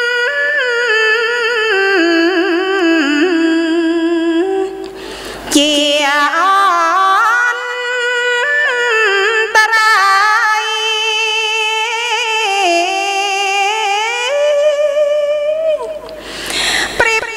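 A woman's solo voice chanting a Buddhist text in the melodic Khmer sung style, holding long notes that glide slowly up and down. She pauses briefly about five seconds in and again near the end.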